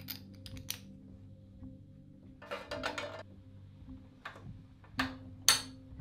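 Background music under mechanical workshop noises from bicycle parts and tools being handled: scattered sharp clicks, a short rattling burst about two and a half seconds in, and a loud click near the end.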